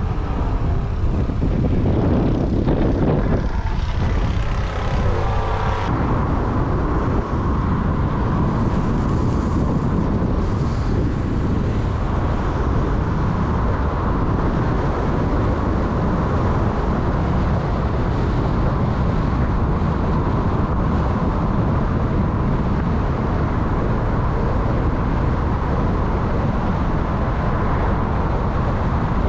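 Steady low rumble of a moving vehicle, a little uneven for the first few seconds and then very even, with a faint steady whine.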